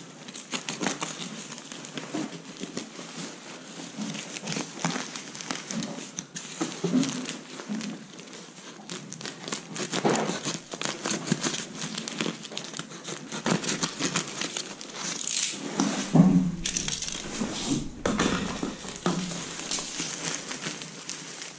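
Aluminium foil jacket of an insulated flexible ventilation duct crinkling and crackling irregularly as it is handled and squeezed by hand.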